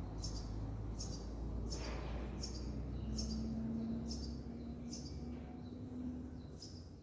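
Short high chirps repeating evenly about once every second, typical of a small bird calling, over a low steady hum.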